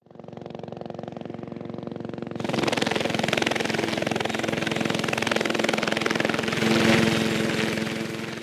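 Helicopter sound effect: rotor blades beating fast over a steady engine whine. It steps up in loudness about two seconds in and fades away near the end.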